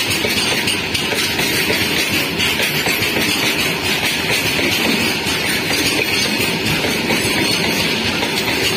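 Loaded open freight wagons of a goods train rolling past close by, their steel wheels running on the rails in a loud, steady rumble.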